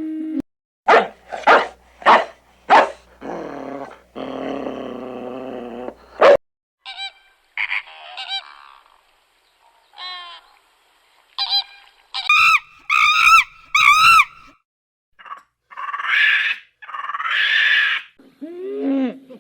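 A run of separate farm-animal calls, cut hard one after another with dead silence between them. First come four short sharp calls, then a longer held call, then chirping, and last several rising-and-falling and honking calls.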